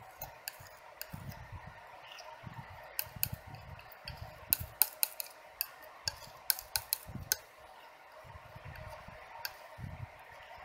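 Metal painting knife mixing oil paint on a palette: soft scraping strokes with irregular sharp clicks and taps of the blade on the palette, thickest in the middle.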